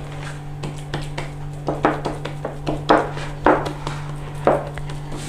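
Knocks and clatter of a metal baking tin being handled on a kitchen counter while oiled bread dough is set in it, half a dozen short strikes over a steady low hum.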